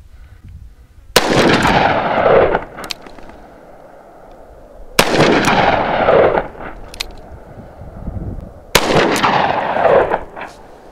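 Three shots from a Taurus 605 polymer revolver with a 2-inch barrel, about four seconds apart: two .357 Magnum rounds and one .38 Special +P round fired into ballistics gel. Each report is followed by a long echo that trails off over about a second.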